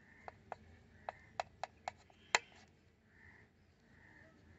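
Kitchen knife cutting through a stuffed bread sandwich and clicking against a plastic plate: about seven sharp clicks in the first two and a half seconds, the last one the loudest.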